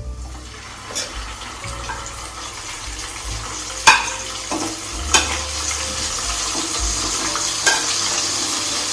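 Chilli-marinated chicken pieces being spooned into hot oil in a frying pan, sizzling steadily and growing louder as more pieces go in. A few sharp clinks of the spoon against the pan or plate, the loudest about four seconds in.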